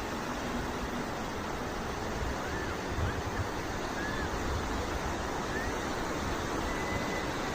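Sea surf washing onto a beach: a steady rush of breaking waves that swells slightly about three seconds in.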